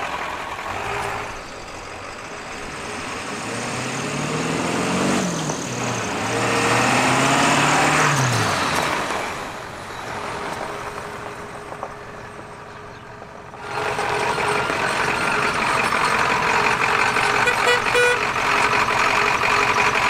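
Ford 7.3 Powerstroke turbo-diesel V8 of a tow truck pulling away, its pitch climbing twice as it accelerates, then dropping off. A few seconds before the end it comes back louder and runs steadily close by.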